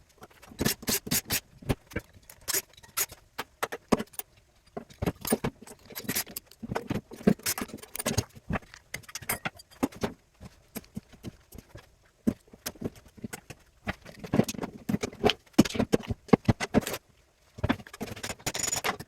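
Irregular metallic clinks, taps and knocks of hand tools and loose metal parts as a small electric motor is taken apart.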